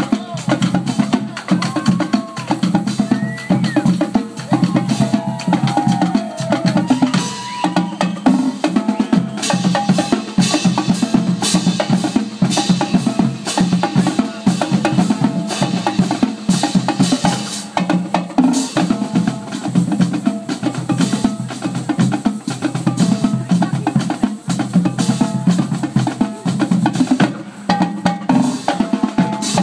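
A marching drumline playing, snare and bass drums beating out a steady, dense rhythm.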